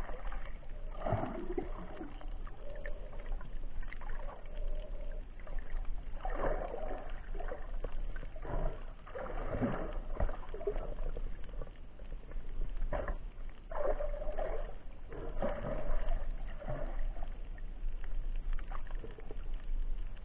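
Muffled underwater water noise picked up by a camera in a waterproof housing, swelling in repeated surges every two to three seconds over a steady low hum.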